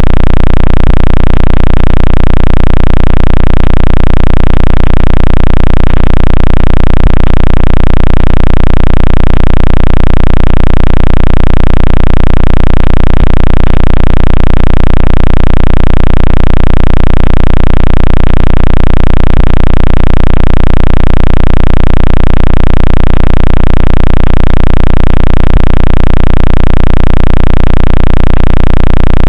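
Synthetic water-eject tone, made to shake water out of a phone's speaker and charging port. It plays at full volume and does not change, with a deep low hum that pulses evenly.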